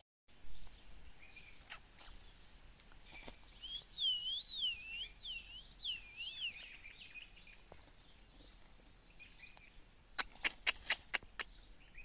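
A parrot whistling a warbling call of about five quick up-and-down swoops in pitch. Near the end there is a quick run of about seven sharp clicks, with a few single clicks earlier.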